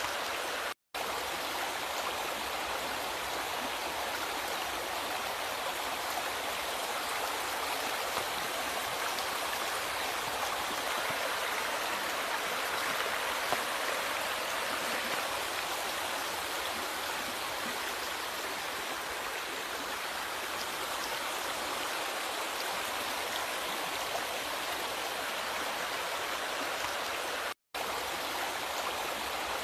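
River water flowing and splashing in a steady rush. The sound cuts out for a split second twice, about a second in and near the end.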